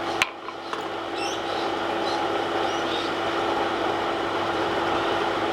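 A single sharp hammer strike on steel about a quarter second in, then a steady mechanical hum with a droning tone that grows slightly louder.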